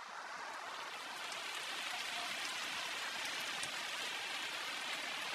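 Football stadium crowd noise, an even roar from the stands that builds over the first couple of seconds as a shot is struck, then holds steady.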